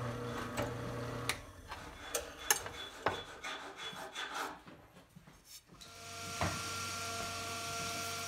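Workshop hand work: rubbing and scraping with scattered light knocks and clicks. A steady machine hum cuts off about a second in, and a different steady hum starts about two-thirds of the way through.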